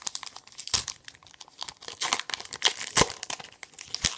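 Foil booster-pack wrapper being torn open and crinkled by hand, a dense irregular crackle with a few sharper snaps.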